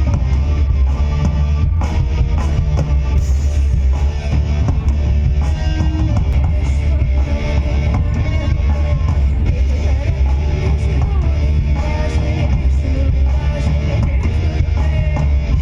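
A rock band playing live, loud: electric guitar, drum kit and heavy bass, with a singing voice over them at times.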